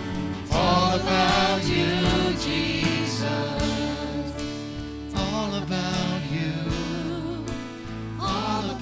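A vocal group sings a worship song with instrumental accompaniment, the voices holding long notes with vibrato.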